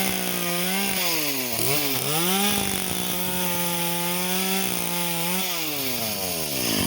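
Echo CS-370 two-stroke chainsaw running at high revs while cutting, its pitch dipping and recovering about a second and a half in. Near the end its pitch falls steadily as the throttle is let off.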